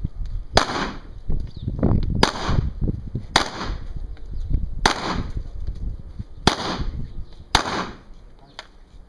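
Handgun shots fired one at a time during a shooting-match course of fire: six sharp reports spaced about one to one and a half seconds apart, each followed by a short echo.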